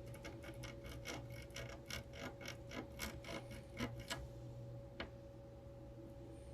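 Light, quick ticking from small tools clicking during hand soldering on a circuit board, about four or five ticks a second, stopping about four seconds in with one last tick a second later. A faint steady hum runs underneath.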